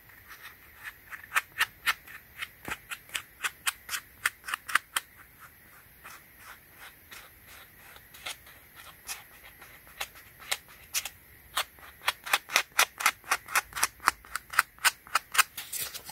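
Sandpaper rubbed in quick back-and-forth strokes over the foam of a Yeezy Foam Runner, sanding down scratches and scuffs on the shoe. The strokes come about three to four a second, ease off for several seconds in the middle, then pick up again.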